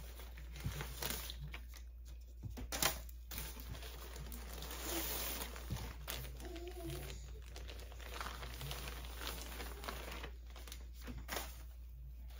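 Plastic mailer bag crinkling and rustling as it is handled and a garment is pulled out, with a few sharper crackles in the first few seconds.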